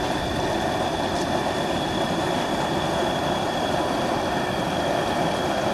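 Propane turkey fryer running: a steady roar from the burner under the pot of hot oil, with a faint high whistle over it.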